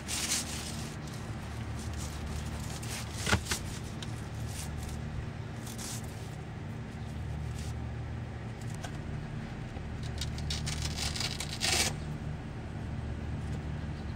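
Rubber cargo liner being flexed and slid into place over a sheet of paper on the cargo floor: a few short knocks, the sharpest about three seconds in, and a brief scraping rustle near the end, over a steady low hum.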